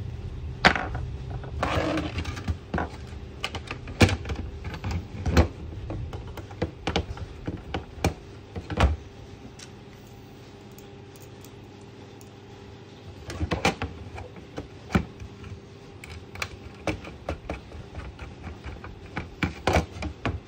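Hard disk and sheet-metal CCTV DVR case being handled and screwed together: irregular clicks, taps and knocks with a short scrape early on, a quieter stretch about halfway through, then more clicks as screws are driven in with a screwdriver.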